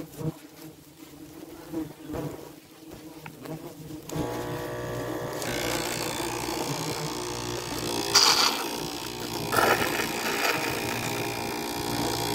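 Faint clicks, then about four seconds in a small electric motor switches on and runs with a steady hum: the suction pump used to draw honey out of trigona honey pots. A few louder hissing bursts come over it.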